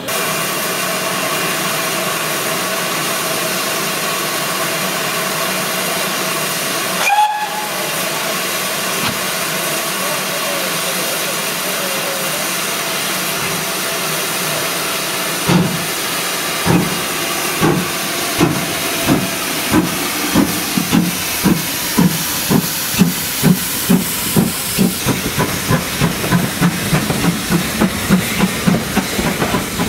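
GWR 4200 Class 2-8-0 tank locomotive No. 4270 standing in steam with a steady hiss, and a short whistle about seven seconds in. About halfway through it starts away with its train: slow exhaust beats that quicken to about three a second.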